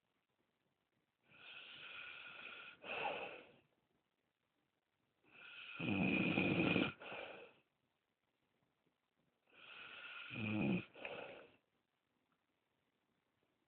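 Snoring: three long snores about four seconds apart, each growing louder toward its end, with silence between.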